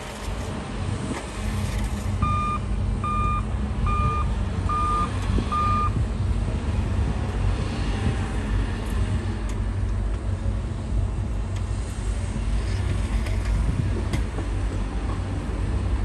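Heavy diesel earthmoving machinery running steadily, with a reversing alarm beeping five times at an even pace starting about two seconds in.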